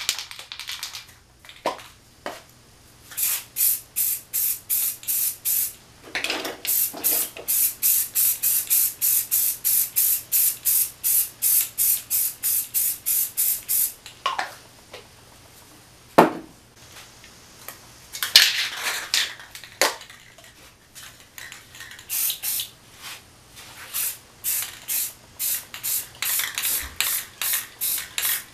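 Aerosol spray paint can being shaken in long spells, its mixing ball rattling with a regular stroke about three or four times a second. Just past the middle comes a couple of seconds of steadier spraying hiss as paint is sprayed onto the board.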